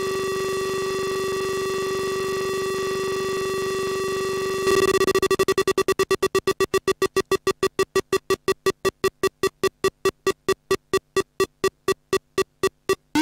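Square-wave sound effects from a microprocessor-driven LED wheel-of-fortune fairground game during its spin. A steady buzzy tone plays at reduced volume, then about five seconds in it steps up in volume and breaks into a run of beeps that get steadily slower as the spin winds down.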